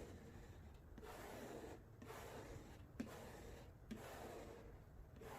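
Faint swishing strokes, about one a second, of a squeegee being drawn down over a wet vinyl decal on a car taillight.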